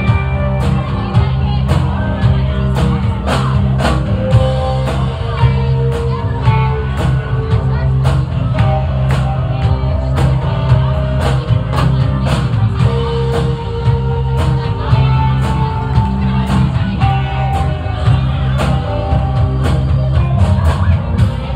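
Live rock band playing loud: electric guitar over drums keeping a steady beat, with a heavy low end.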